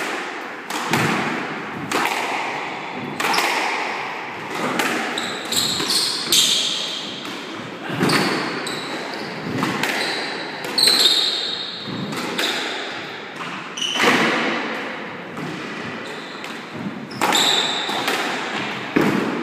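Squash rally: the ball is struck by rackets and smacks against the court walls about once a second, each hit echoing in the enclosed court. Short high squeaks of the players' shoes on the wooden floor come in between the hits.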